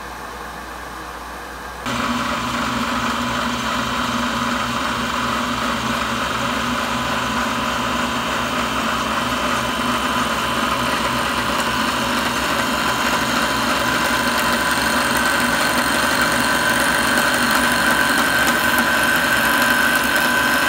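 Milling machine spindle running a cutter into a wooden pool cue, cutting the points: a steady machine whine with cutting noise that steps up sharply about two seconds in, and a high tone that grows stronger toward the end.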